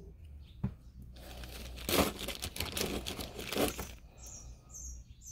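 Thin plastic bag crinkling as it is handled, from about one to four seconds in. Near the end, a bird chirps faintly several times.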